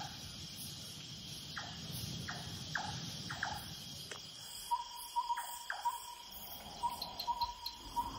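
Night chorus of crickets and other insects, a steady high trill. Short falling chirps repeat in the first half, and a quick run of short, even notes comes in about five seconds in.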